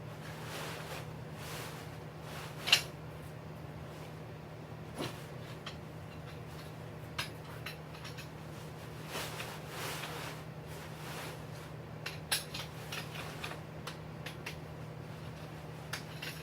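Tent pitching: tent fabric rustling, with scattered sharp clicks and knocks from the poles and fittings, the loudest about three seconds in. A steady low hum runs underneath.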